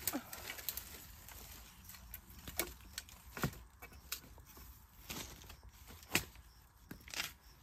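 Dry bamboo stems and twigs snapping and rustling as they are pulled and handled by hand, with scattered sharp cracks about a second apart.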